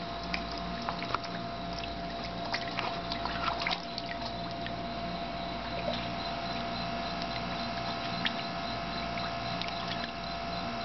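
Water at a dock edge with small splashes and sharp clicks, busiest in the first four seconds and sparse after, over a steady hum.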